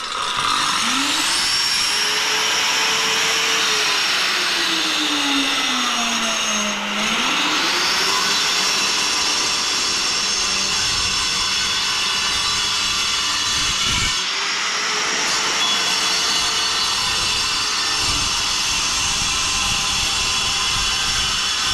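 Corded angle grinder with a diamond disc starting up and cutting through a clay roof verge tile. The motor's whine rises as it spins up, drops in pitch as the blade bites into the tile about six seconds in, recovers, dips sharply again around fourteen seconds, then runs on through the cut.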